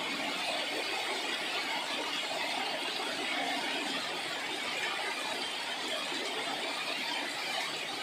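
Heavy rain falling steadily: an even, continuous hiss of drops on wet ground and leaves.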